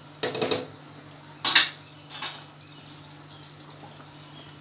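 A spoon stirring thick curry in a cooking pot, knocking and scraping against the pot: a short clatter just after the start, a louder scrape-and-clink about a second and a half in, and a smaller one soon after.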